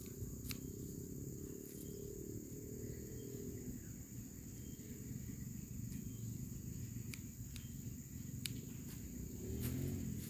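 A steady high-pitched drone of insects over a low rumble, with a few sharp clicks scattered through it, about five in all.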